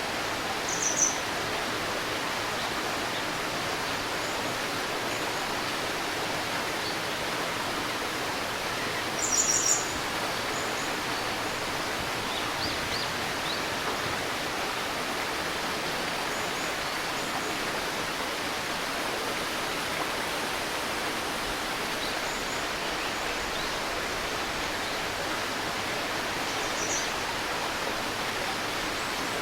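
A river babbling steadily over stones, with short high bird chirps about a second in, a louder cluster of calls about a third of the way through, and another chirp near the end.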